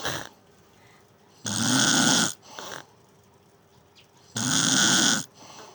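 Snoring: two loud rasping snoring breaths, each just under a second long, about three seconds apart, each followed by a shorter, softer breath.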